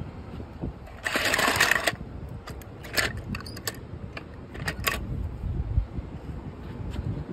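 Die-cast toy cars clattering against each other in a bowl as a hand rummages through them: a dense rattle about a second in, then scattered sharp clicks.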